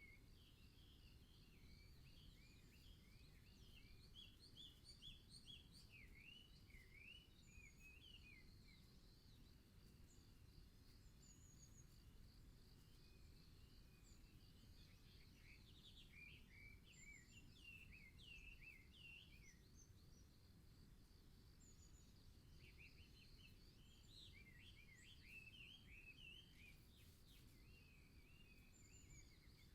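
Faint songbird birdsong: bouts of quick chirping notes that glide up and down, the first for most of the first nine seconds, another in the middle and a third near the end, over a steady low background hiss and rumble.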